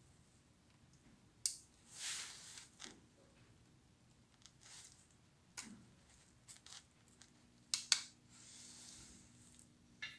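Small tools or parts being handled on a workbench: several sharp clicks and two short hissy rustles, over a faint steady hum.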